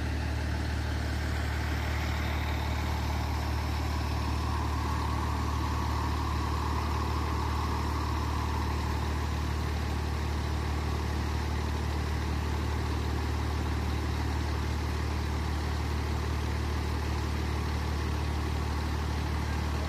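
Fire truck engine idling, a steady low hum that does not change.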